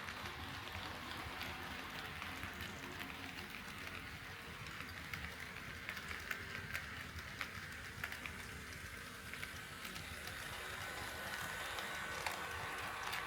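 HO scale model train rolling along KATO Unitrack, with a steady rolling rumble and irregular wheel clicks over the rail joints. A faint steady motor whine comes up in the second half.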